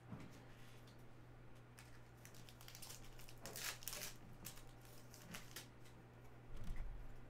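Foil trading-card pack wrappers crinkling and tearing as packs are handled and opened, in faint scattered rustles that are busiest around the middle. A steady low hum runs underneath, and a soft low thump comes near the end.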